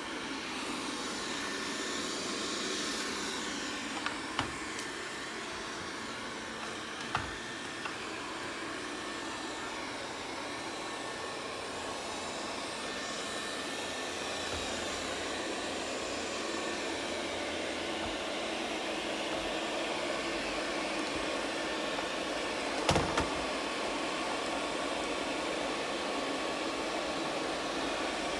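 ZOOZEE Z70 robot vacuum running steadily with a whirring suction fan as it drives back to its charging dock after finishing a sweep. A few short knocks come about 4 s and 7 s in and again near the end.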